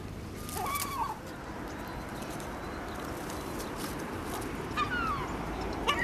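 Gulls calling: a short call about a second in, a falling call near five seconds in, and a louder falling call at the very end, over steady background noise.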